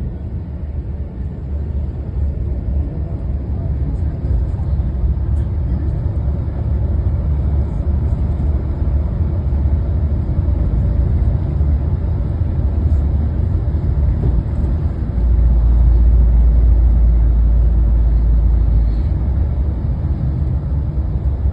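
Road vehicle driving, heard from inside the cabin: a steady low engine and road rumble that swells louder for a few seconds about fifteen seconds in.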